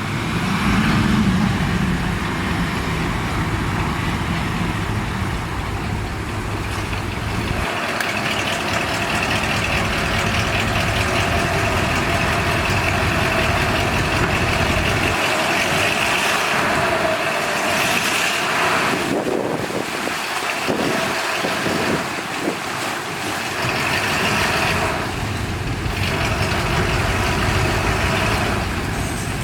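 Heavy dump truck's diesel engine running steadily, its sound shifting about eight seconds in as the deep rumble drops away.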